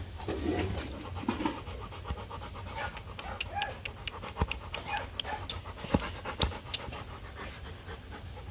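Three-week-old Rottweiler puppy panting while held up close, with a scatter of short sharp clicks between about three and seven seconds in.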